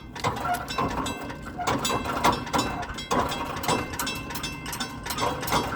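Mechanical railroad-crossing bell ringing, about two strikes a second, somewhat unevenly spaced, each stroke leaving a short metallic ring.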